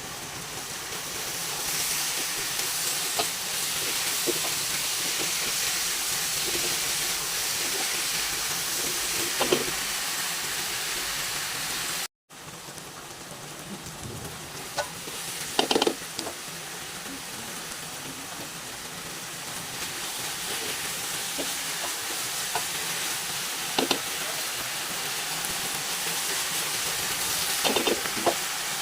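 Spicy baby octopus stir-frying in a hot pan: steady sizzling, with occasional knocks and scrapes of a utensil against the pan. The sound breaks off for a moment about twelve seconds in, then the sizzling goes on.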